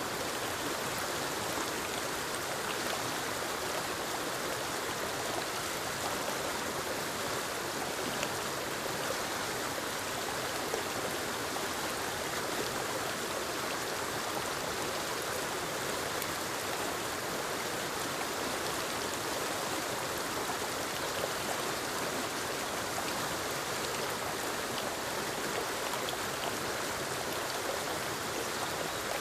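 Forest waterfall cascading over rocks into a stream: a steady rushing of water, even throughout.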